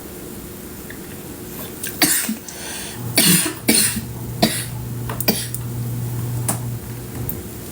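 A woman coughing hard, a run of about six separate coughs starting about two seconds in; she has a cough and is ill.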